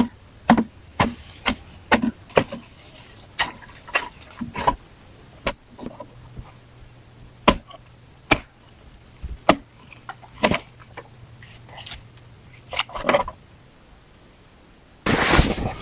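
Wood being chopped: an irregular series of sharp knocks, about one or two a second. A louder rushing noise starts near the end.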